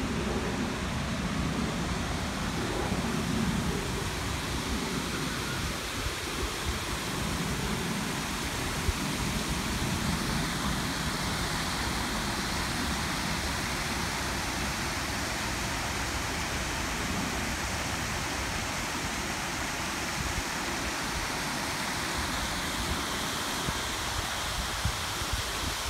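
Steady rushing of an artificial waterfall spilling over a rock cascade into a pool.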